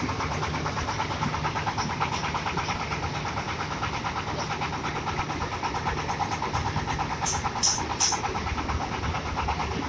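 Corn sheller's engine running steadily at idle, a fast even pulse with no load on it. Three short high-pitched ticks come near the end.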